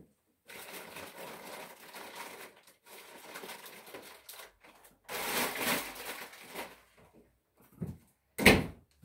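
Kitchen work noise: uneven rustling and light clatter, a louder stretch of it midway, then one sharp knock near the end, the loudest sound.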